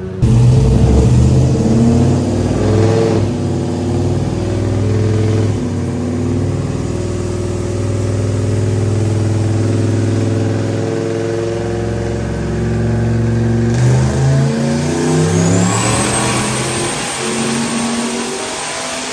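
Turbocharged LS V8 in a GMC Sierra pickup running at full throttle under load on a chassis dyno, its note climbing in steps. A high turbo whistle sweeps up near the end and holds.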